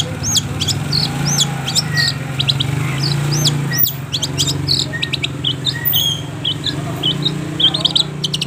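Long-tailed shrike (cendet) singing a fast, continuous run of short, sharp arched chirps and whistles, with a brief break about four seconds in and a quicker stutter of notes near the end. A low steady hum runs underneath.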